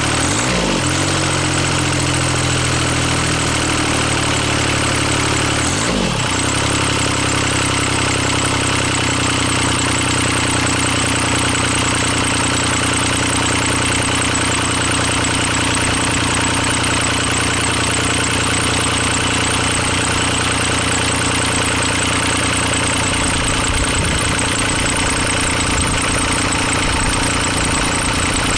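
A 1985 Cub Cadet 1512's Kubota three-cylinder diesel running steadily. Its pitch dips briefly and comes back up twice, about half a second in and again about six seconds in.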